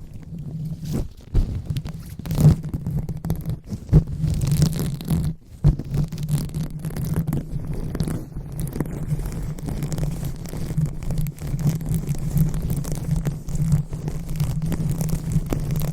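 Fingers rubbing and scratching on a microphone for ASMR 'brain massage': a steady low rumble under irregular scratchy crackles, with a few louder taps in the first four seconds.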